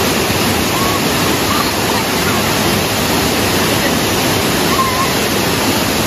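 Waterfall cascading over rocks into a shallow pool: a loud, steady rush of water.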